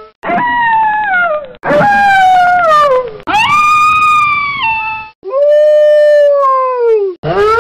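Wolves howling: about five long howls one after another, most sliding down or arching in pitch, each cut off abruptly before the next begins.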